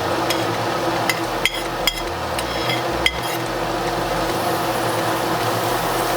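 Chopped onions, garlic and hot peppers sizzling in hot oil in a pot. A utensil clinks against the pot several times in the first three seconds as they are stirred.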